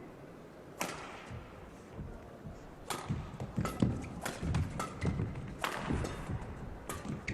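Badminton rally on an indoor court: sharp racket strikes on the shuttlecock, players' heavy footfalls and short shoe squeaks. One strike comes about a second in, and a quick run of hits and footfalls follows from about three seconds in.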